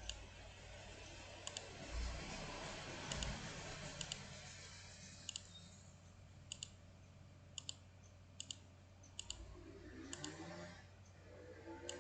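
Computer mouse clicking at irregular intervals, many of them quick double clicks, over a low steady electrical hum.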